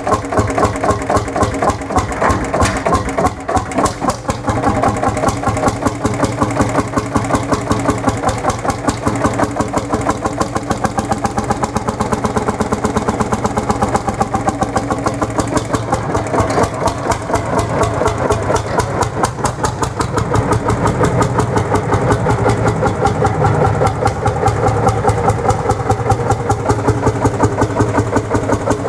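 Lanz Bulldog 35 hp tractor's single-cylinder two-stroke hot-bulb engine running with a steady, rapid thumping beat. It is back in running order after many years of standing still.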